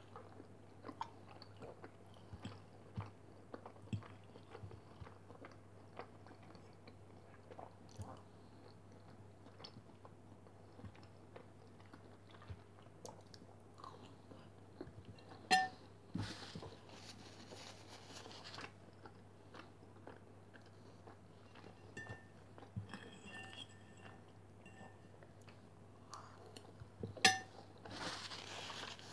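Close-miked chewing of boiled beef dumplings (pelmeni), with many small wet mouth clicks. A metal fork clinks twice on a ceramic plate with a short ring, about halfway through and again near the end as it is laid down. A steady low hum runs underneath.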